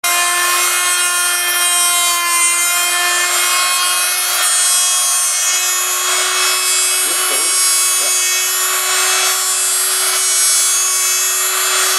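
Rotary tool on a homemade copy mill running with a steady high whine while its bit cuts a wooden lure blank, a rough hiss of wood being milled underneath; the whine steps up slightly in pitch about halfway through.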